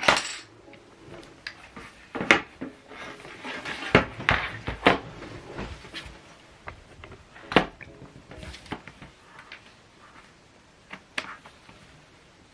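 Irregular clicks and knocks from handling a Rii mini wireless keyboard and its USB receiver, with the sharpest knocks near the start, a little past two seconds, around four to five seconds and about seven and a half seconds in.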